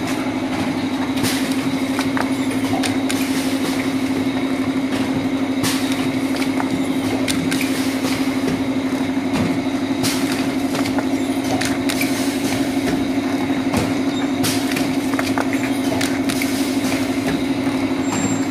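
A 4-head pneumatic cup filling machine running: a steady hum with frequent short clicks and hisses through it.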